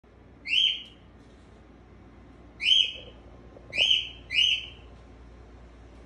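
A male whiteface cockatiel gives four short, loud calls: one, another about two seconds later, then two close together.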